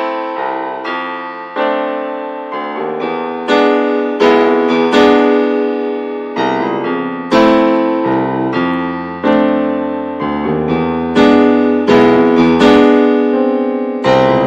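Background music: a piano playing a slow run of chords, each struck chord ringing and fading before the next.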